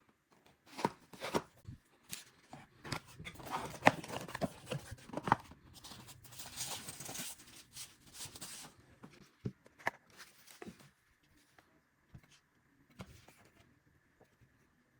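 Speaker packaging being handled and opened: a run of taps and clicks on the box, rustling, then a tearing, sliding rustle about six seconds in, ending in a few scattered clicks.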